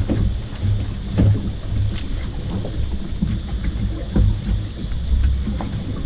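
Wind rumbling on the microphone aboard a small boat, with a few sharp knocks.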